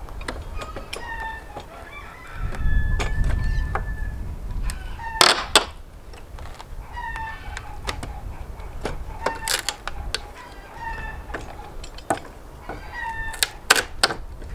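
Chickens clucking steadily, with several sharp cracks and creaks as pallet boards are pried up off their nails with a pallet buster, the loudest about five seconds in. A low rumble comes for about two seconds early on.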